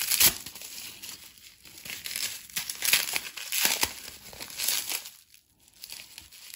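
Plastic bubble wrap crinkling and crackling as a small wrapped item is handled and unwrapped, in an uneven run of rustles with a short lull about five seconds in.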